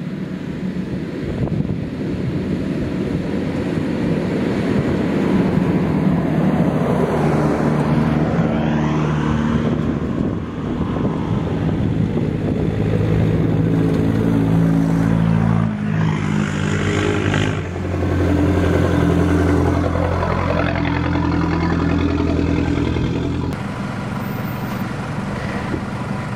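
Four-wheel-drive vehicles driving along a soft sand track, their engines running under load. The sound builds after the first couple of seconds and dips briefly a few times.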